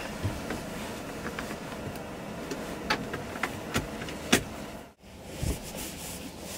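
Rustling fabric and bedding with scattered small clicks and knocks as a bunk curtain and bedding are handled, over a steady low hum; one sharper knock a little past four seconds in, and the sound briefly drops out about five seconds in.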